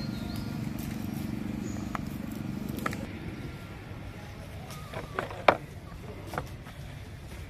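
Empty plastic water bottle crinkling and cracking as a monkey grips and twists it, with a few sharp cracks in the second half, the loudest about five and a half seconds in. A low steady hum runs underneath and stops about three seconds in.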